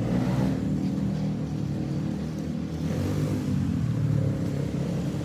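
Motor scooter engine running steadily while riding along a road.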